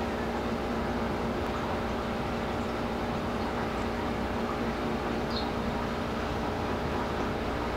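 Steady mechanical hum with several held tones over a low drone, unchanging throughout.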